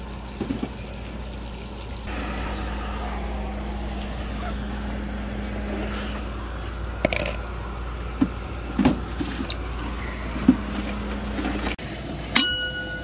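Water running steadily from a campsite spigot, with a few small knocks. Near the end, a sharp metal clank with a short ring as the lid is set on an enamel coffee percolator.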